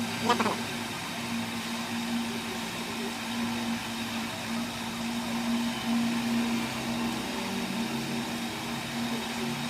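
A machine running with a steady hum. A lower tone shifts in pitch over the last few seconds.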